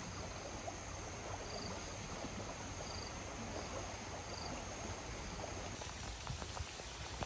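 Steady hiss of light rain and dripping outdoors, with a few faint, short, high chirps in the first few seconds. Near six seconds the hiss turns brighter and scattered raindrop taps begin.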